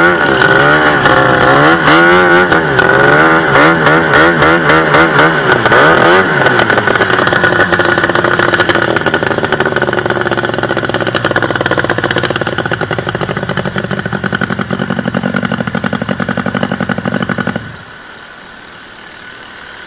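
A 700cc two-stroke racing boat engine running hard, its pitch wavering up and down for the first few seconds before settling into a steadier note. Near the end the engine sound drops away abruptly.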